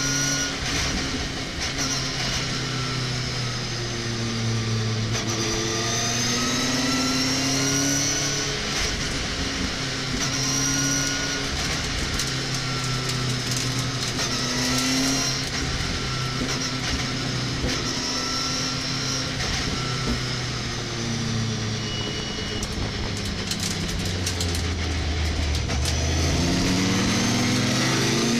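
Racing pickup truck's engine heard from inside the cab at race pace, its pitch rising and falling with gear changes and corners, then climbing steadily near the end as it accelerates hard.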